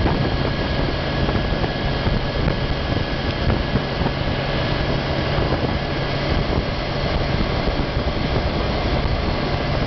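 Motorcycle at steady cruising speed: a steady low engine hum under a constant rush of wind noise.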